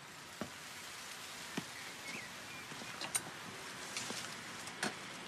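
Quiet outdoor garden ambience: a faint steady hiss with a few light, irregular clicks and taps.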